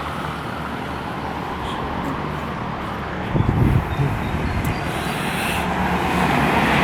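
Steady noise of a moving road vehicle, with a brief louder low rumble about halfway through.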